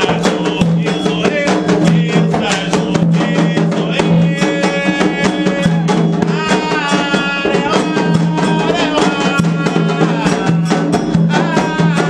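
Candomblé ceremonial music: hand drums, likely atabaques, beat a fast, dense rhythm under a sung chant.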